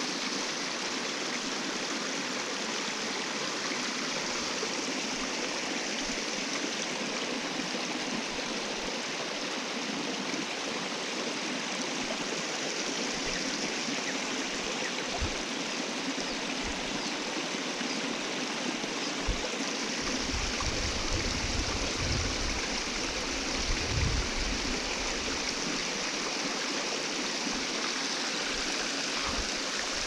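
Fast-flowing creek, swollen after rain, rushing over rocks and out of culvert pipes: a steady rush of water, with some low buffeting about two-thirds of the way through.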